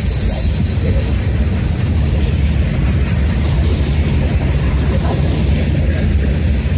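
A freight train's boxcars rolling past close by, with a steady low rumble of steel wheels on rail.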